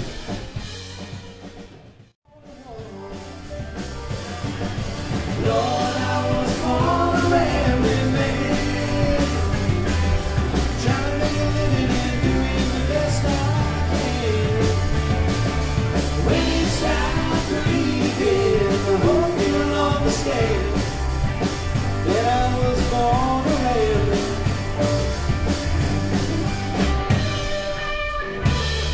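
Live rock band playing: electric guitars, bass and drum kit. The sound drops away almost to nothing for a moment about two seconds in, then the band builds back up, with a lead melody with bending, wavering pitch over the steady drums and bass.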